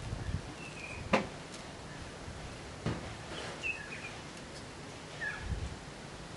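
Quiet handling sounds of a utility knife cutting and breaking set alginate away from a plaster of Paris hand cast, with a sharp click about a second in and another near three seconds. A bird chirps a few times in the background.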